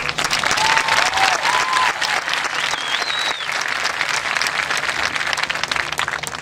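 Stadium crowd applauding and cheering, with a few whoops early on and a shrill whistle about three seconds in.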